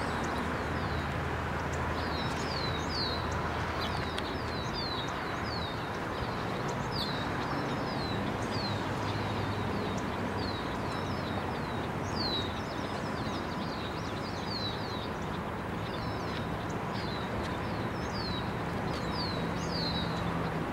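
Steady rumble of a slow-moving ballast train shoving back along the track, with a songbird chirping over it again and again in short downward-sliding notes.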